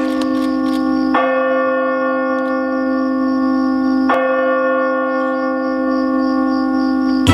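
A single church bell tolling slowly: struck about a second in and again about three seconds later, each stroke ringing on long with a rich set of overtones.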